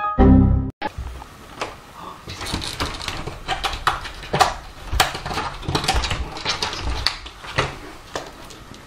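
A short, loud low burst that cuts off sharply under a second in, then a run of irregular knocks, thumps and rattles as a heavy cat jumps against a door and clings to its handle.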